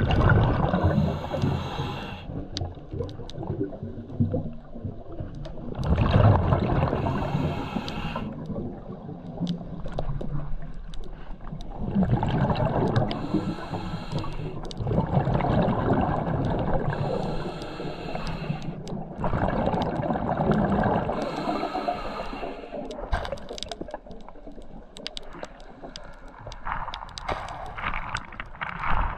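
Scuba diver's regulator breathing underwater: a loud burst of exhaled bubbles about every six seconds, with quieter inhalations between. Near the end, a run of sharp clicks as shell rubble on the bottom is stirred up.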